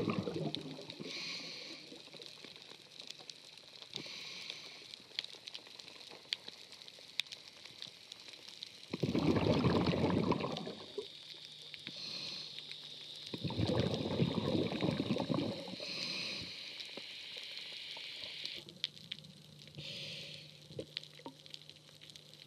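Scuba diver breathing through a regulator underwater: short hissing inhalations every few seconds and two long bubbling exhalations, about nine and thirteen seconds in, over a steady scatter of small clicks.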